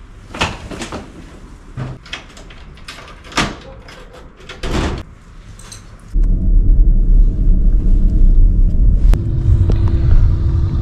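Several sharp knocks and clicks as a suitcase and bag are brought out through a door and set down on tiles. About six seconds in, a sudden change to a loud, steady low rumble inside a car cabin.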